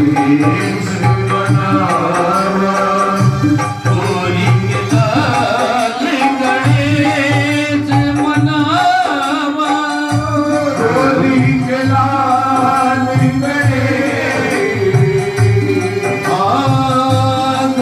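Live bhajan accompaniment: harmonium and keyboard playing the melody over a steady dholak drum beat.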